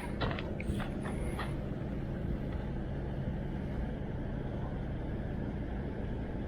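Steady low engine hum and rumble from a running motor nearby, with a few short high chirps in the first second and a half.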